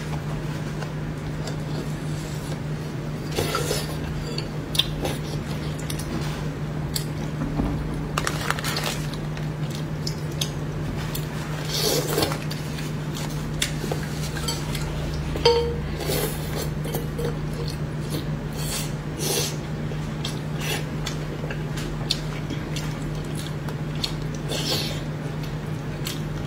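Scattered clicks and clinks of chopsticks on a plate and a metal bowl as braised fish is picked apart and eaten, over a steady low hum.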